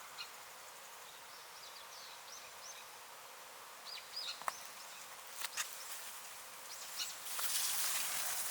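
Outdoor ambience with scattered short, high bird chirps in the first half and a few sharp clicks. A louder steady hiss sets in about seven seconds in.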